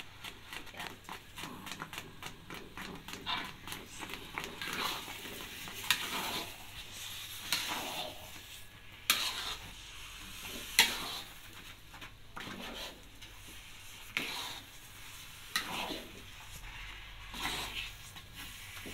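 Metal spoon stirring and folding a thick, sticky tapioca-starch dough in an aluminium wok, scraping and knocking against the pan in repeated strokes, about one every second and a half.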